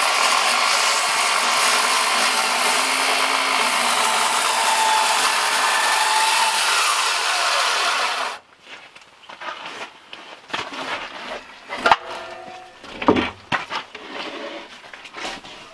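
Skilsaw 10-1/4-inch worm drive circular saw with a 40-tooth carbide blade cutting through a large timber, running loud and steady for about eight seconds, then cutting off suddenly as the cut ends. A few scattered knocks and clatter follow.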